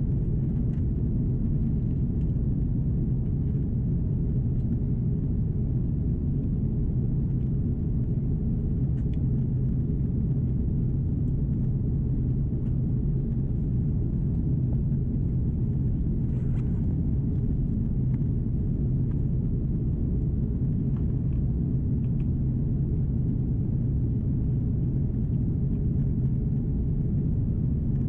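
Steady low rumble inside the cabin of an Airbus A330-343 during descent: the Rolls-Royce Trent 700 engines and the airflow over the fuselage, with an even hum underneath.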